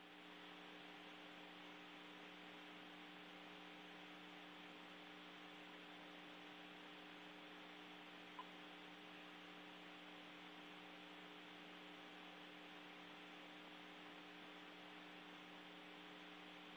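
Near silence: the faint steady hum and hiss of an open space-to-ground radio channel, with one tiny click about eight seconds in.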